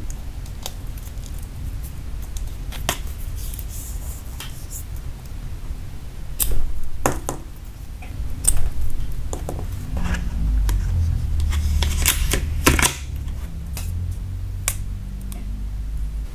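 Handling a smartwatch box and its packaging: scattered small clicks, taps and short crinkly rustles over a low rumble. The loudest clicks and rustles come about six and a half, eight and a half and twelve seconds in.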